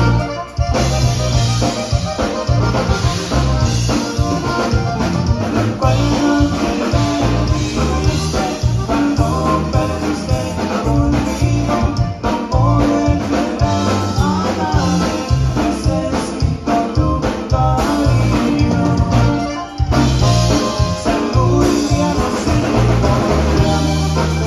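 Live Tejano conjunto band playing: red button accordion carrying the melody over electric bass, guitar and drum kit, with a steady driving beat.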